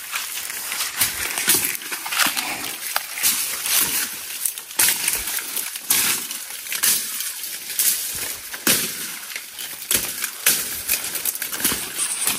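Footsteps crunching through dry leaf litter and twigs, with branches rustling and cracking as people push through dense undergrowth; a busy, irregular crackle with no let-up.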